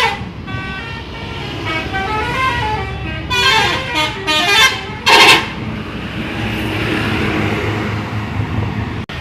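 Bus 'telolet' musical air horns playing quick melodies of stepped notes, with the loudest blast about five seconds in. After that a low engine rumble carries on under fainter horn notes.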